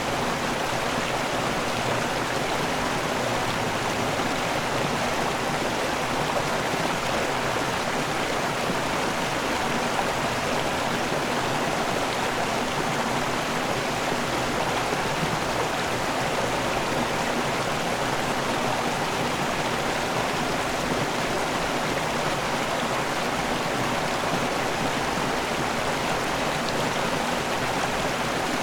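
River water pouring over a waterfall and running over rocks: a steady, unbroken rushing.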